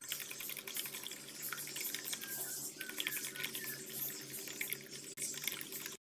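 Eggs being beaten with a wire whisk in a glass bowl: rapid, irregular clicking of the wire against the glass, with the sloshing of the liquid egg.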